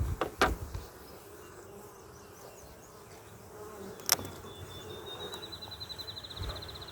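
Honeybees buzzing around an opened nuc hive, with a few clicks of frames being handled near the start and one sharp click about four seconds in. A high, thin trill comes in over the last few seconds.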